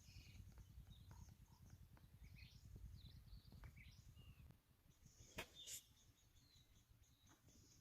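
Near-quiet outdoor ambience: small birds chirping faintly over a low rumble that eases off about halfway through. A couple of faint sharp clicks come a little after the middle.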